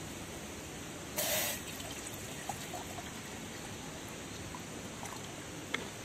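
Wood fire burning in a small folding firebox stove under a cooking pot, with a few faint crackling pops over a steady hiss. About a second in there is a brief, louder hiss lasting about half a second.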